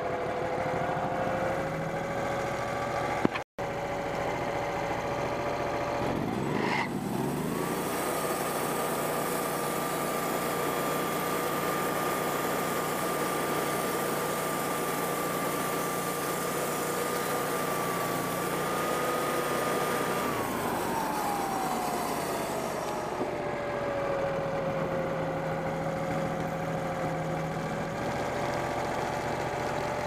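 Wood-Mizer portable band sawmill: its engine running low, then brought up to full speed about seven seconds in as the band blade saws along a rotten black walnut log, holding a steady high pitch for about thirteen seconds before dropping back to a low running speed. A short pop and a momentary break in the sound come about three seconds in.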